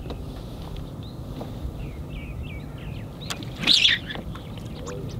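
Small birds chirping, with a few short twittering notes and one louder, harsher call about three-quarters of the way through, over a steady low background rumble.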